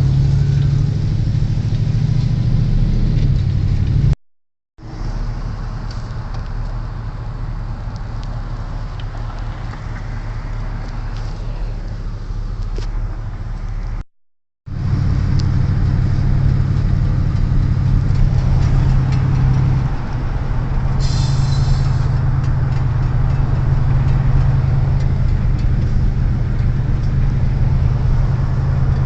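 Car driving, heard from inside the cabin: a steady low engine and road rumble with tyre noise. It drops out briefly twice, and a short hiss comes in about two-thirds of the way through.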